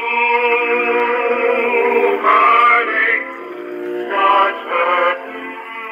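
A Victor XVI Victrola, a wind-up acoustic phonograph, playing a record of singing with accompaniment through its wooden horn cabinet. The sound is thin, with no deep bass and no high treble.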